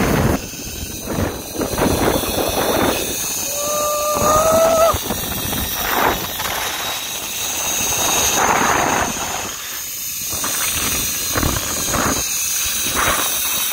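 Zip-line ride: steady rushing wind noise and the trolley running along the steel cable. About four seconds in, a brief thin whistle-like tone rises slightly.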